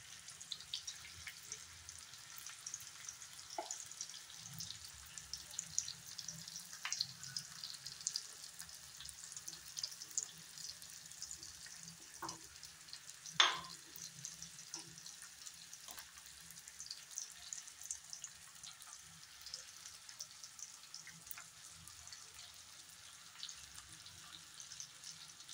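Faint sizzling and crackling of food cooking in pans on the stove, with a few sharp clicks scattered through it, the loudest about halfway through.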